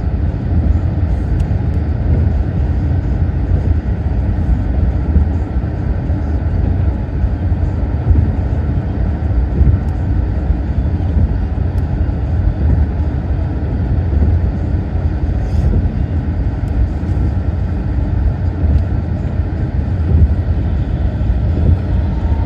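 Steady road and engine noise from a moving car, a continuous low rumble.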